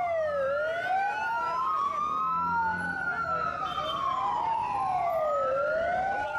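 Two ambulance sirens wailing together, each sweeping slowly up and down in pitch over about five seconds, out of step so that one rises while the other falls.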